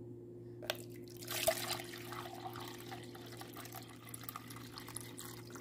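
Water being poured into a plastic measuring jug sitting on a kitchen scale. The pour starts a little over a second in with a splash and runs on as an uneven trickle. A single click comes just before it, over a faint steady low hum.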